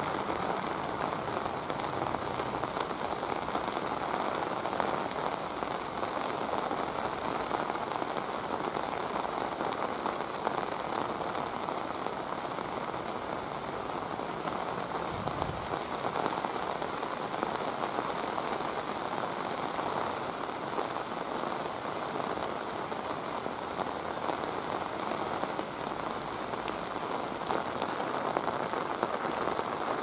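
Steady rain falling through palm trees: an even, continuous hiss of drops that holds level throughout.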